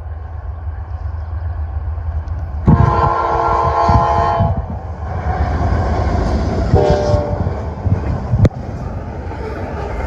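Norfolk Southern freight train's diesel locomotives rumbling steadily as the train runs by, with its air horn sounding a blast of about two seconds and then a short second blast. A single sharp knock comes near the end.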